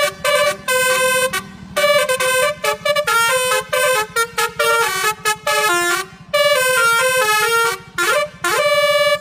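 Bus telolet horn, a set of multi-tone air horns, playing a quick jingling melody in three loud phrases with short gaps between them, ending in a couple of rising glides. A steady low rumble runs underneath.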